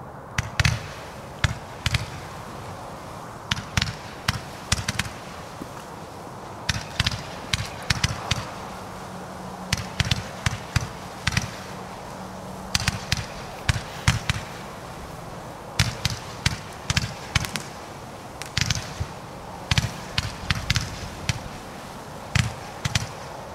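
A 56-shot firework cake firing its shots, each a sharp thump, in irregular clusters of several a second with short gaps between them. A steady hiss runs underneath.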